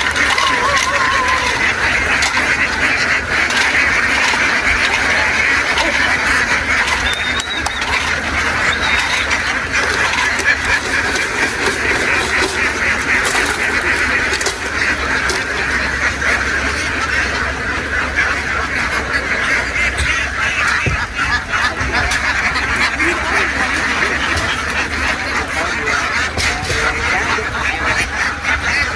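A very large flock of domestic ducks quacking all at once, a dense unbroken chorus that holds steady throughout.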